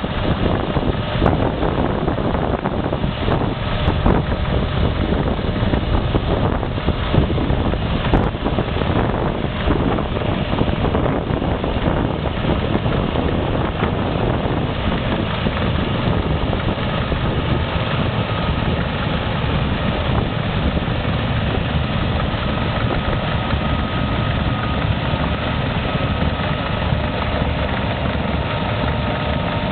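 A heavy machine's engine running steadily, with knocking and clatter during the first dozen seconds and a thin steady whine in the second half.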